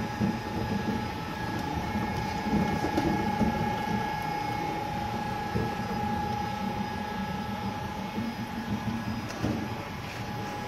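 Stainless-steel lime and calamansi juice extractor running steadily as it squeezes halved fruit: a constant mechanical hum with a held whine over a low churning rumble.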